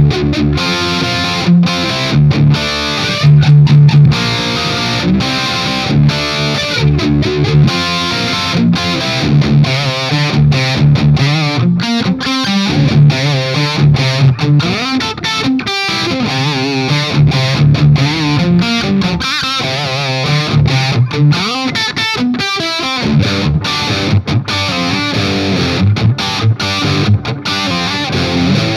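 Electric guitar played through a Marshall Silver Jubilee 2555X 100 W reissue amp with heavy distortion. It riffs on low chugged notes, with faster lead runs in the middle.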